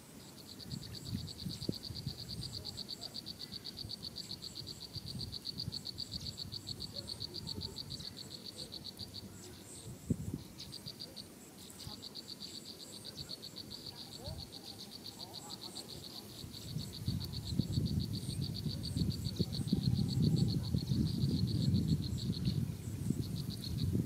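A small animal's high trill of rapid, evenly spaced pulses, running steadily for about nine seconds, pausing briefly, then going on for about ten seconds more. Under it is a low rumble that grows louder in the last several seconds.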